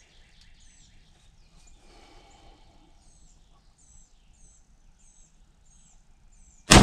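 A bird repeats the same short, high call about twice a second against a quiet background. Near the end a single very loud rifle shot cracks out and its echo rings away.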